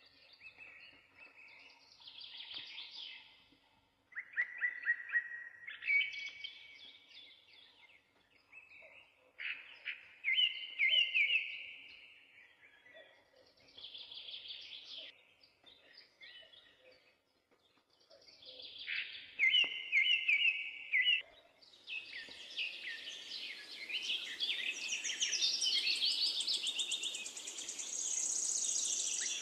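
Birds singing: short chirping and warbling phrases repeat with pauses between them. About two-thirds of the way through, a steady hiss joins and the song grows denser.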